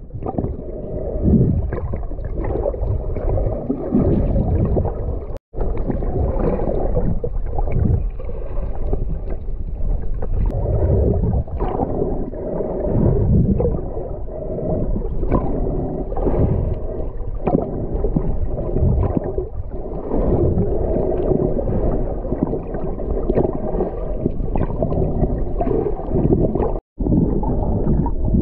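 Muffled underwater sound from an action camera held below the surface while snorkelling: a heavy low rumble of moving water with irregular gurgling and crackling. The sound cuts out briefly twice, about five seconds in and near the end.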